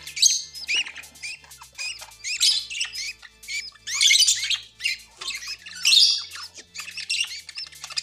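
Budgerigars chirping and chattering in quick clusters of short, high chirps, loudest about two, four and six seconds in.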